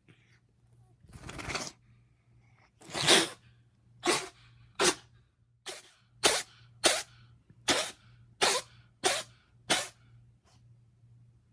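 An animal sneezing in a fit: a loud sneeze about three seconds in, then about nine more short, sharp sneezes in quick succession, roughly one every two-thirds of a second.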